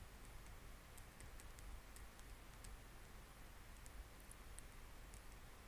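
Near silence: room tone with a scattering of faint, sharp clicks.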